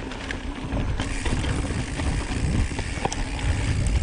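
Mountain bike rolling over a dirt and slickrock trail: steady tyre and wind rumble on the microphone, with scattered clicks and rattles from the bike over bumps.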